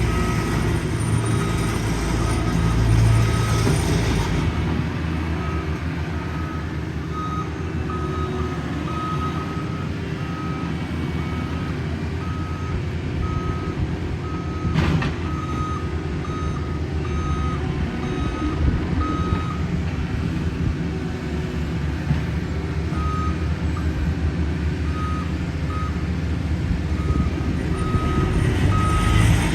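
Backup alarm on a piece of road-paving heavy equipment beeping steadily, about once a second, over a diesel engine running. The beeps pause briefly about two-thirds of the way through, and there is one sharp knock about halfway.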